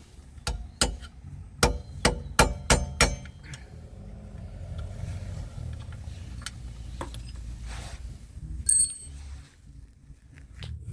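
Hammer tapping on metal while driving a wheel hub out from the inside: about seven sharp, ringing metal-on-metal taps in quick succession in the first three seconds, a single tap later, and a short high metallic ring near the end.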